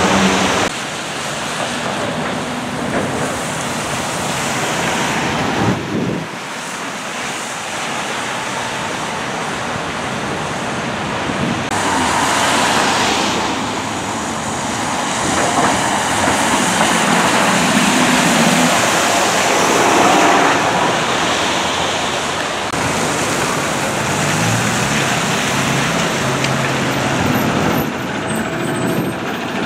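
City buses and traffic on a rain-wet street: a steady hiss of tyres and rain, with bus engines running as buses pass and stop. The sound changes abruptly several times.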